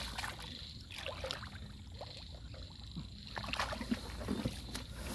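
Hands digging and sloshing through shallow muddy water in a flooded rice paddy: faint scattered splashes and squelches, getting busier near the end.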